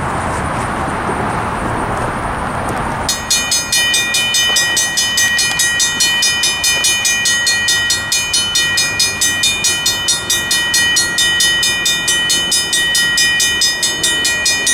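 A Safetran mechanical crossing bell starts ringing suddenly about three seconds in and keeps striking in a fast, even rhythm as the crossing signals activate. It sounds nice and healthy. Before it starts there is a steady rushing background noise.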